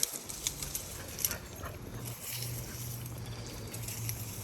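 Footsteps swishing through grass, with a few sharp crackling rustles in the first second or so. A low steady hum comes in about two seconds in.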